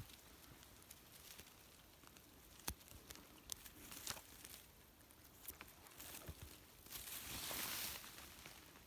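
Faint rustling of blueberry bushes and forest-floor vegetation, with scattered small snaps and clicks, swelling into a longer, louder rustle about seven seconds in.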